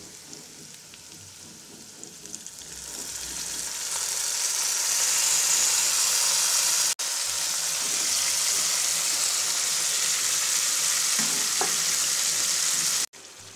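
Oil sizzling quietly under frying potatoes and onions, swelling over a couple of seconds into a loud, steady hiss as marinated beef is tipped into the hot pan and starts to sear.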